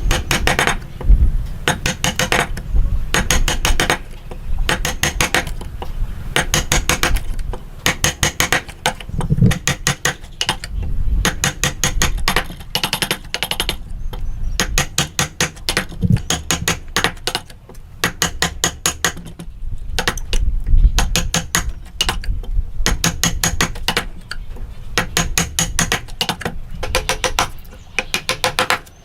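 Runs of sharp taps from a hammer striking a chisel into wood, several blows a second, in bursts with brief pauses.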